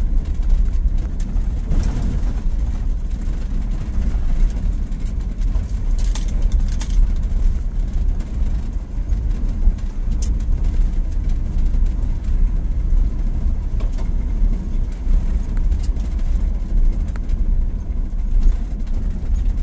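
Van driving slowly on a dirt and gravel road, heard from inside the cab: a steady low rumble of engine and tyres on the gravel, with a few brief rattles and clicks.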